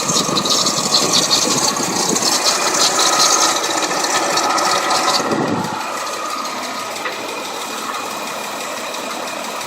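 Toyota FJ40 Land Cruiser running with a fast metallic rattle, the weird noise the owner is recording, which stops about five seconds in. The engine then runs on steadily and more quietly.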